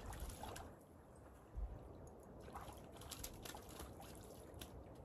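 Small splashes and trickling water as a hooked trout thrashes at the surface close to shore while being reeled in.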